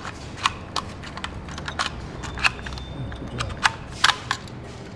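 Scattered sharp clicks and knocks, two or three a second and irregularly spaced, over a faint low hum.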